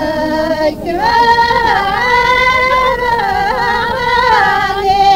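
Ahwach, the Amazigh group song of southern Morocco: voices holding long, wavering sung notes. The singing grows louder about a second in.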